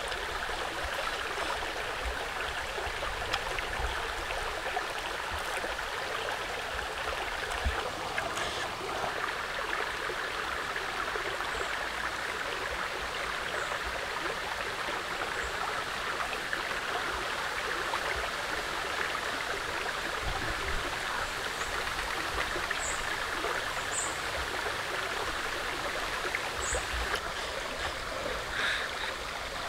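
Steady rushing of running water, like a stream flowing, even and unbroken throughout.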